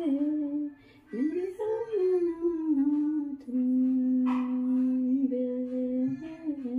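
A woman singing a slow melody solo, sliding between notes. There is a brief break about a second in, then a long held note of about two and a half seconds in the second half.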